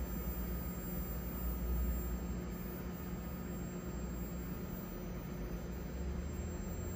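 Seoul Subway Line 1 electric train standing at the platform with its doors open, its onboard equipment giving a steady hum and low rumble with a faint high tone.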